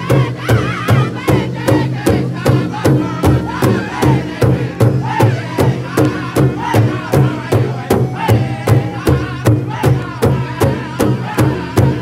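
Powwow drum group: several men beating a large rawhide powwow drum in unison with a steady beat of about two to three strokes a second, while singing together in high, strained voices.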